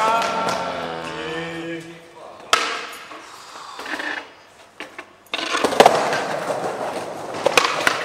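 Skateboard rolling over hard ground with sharp board knocks and slaps, the loudest in the second half. A voice calls out at the start.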